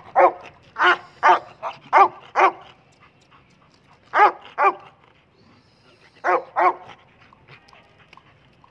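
Dog barking: a quick run of six barks, then a pair about four seconds in and another pair about six seconds in, the barks coming from an excited white Gultair (Bully Kutta-type) dog on a leash.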